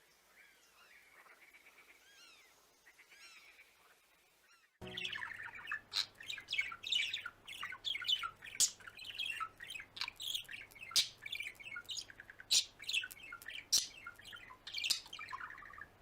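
Birds chirping and squawking: faint, repeated chirps at first, then about five seconds in a sudden switch to a much louder, busy run of sharp chirps and squawks.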